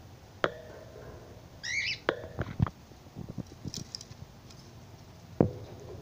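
Cockatiel pecking at a hanging grass seed head: scattered sharp clicks and knocks, the loudest about half a second in and near the end, with a short chirp from a pet bird about two seconds in.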